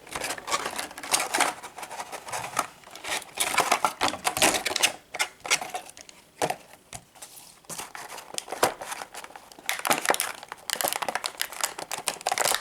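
Toy packaging being opened and handled by hand: irregular crinkling, rustling and clicking.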